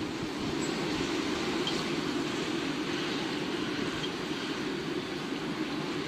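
Steady rushing noise of a rainstorm with wind and a low rumble, and a few faint ticks.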